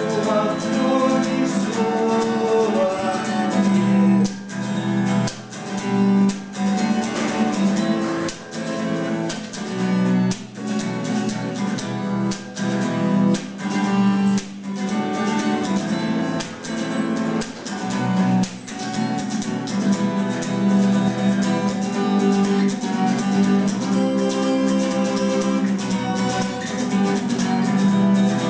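A band's guitar-led instrumental passage: strummed guitar over a steady bass note, broken by short, sharp rhythmic stops.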